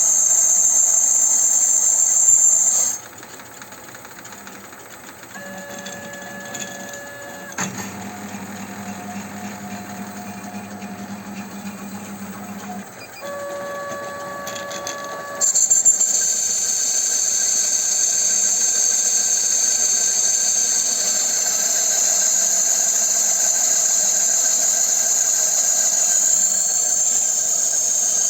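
Homemade lathe turning cast iron: a loud, high, hissing scrape from the cutting tool on the iron over the lathe's running motor. About 3 s in the scrape drops away, leaving a quieter motor hum with a few steady whining tones. Near 15 s the loud scrape starts again and runs on steadily.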